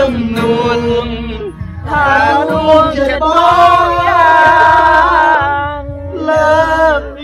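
A man singing a slow song in long held notes into a handheld microphone, with an acoustic guitar strummed along. The singing breaks briefly twice.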